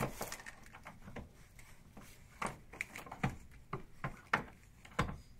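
Key being worked in the lock of an office door's metal lever handle: a series of irregular small metal clicks and scrapes.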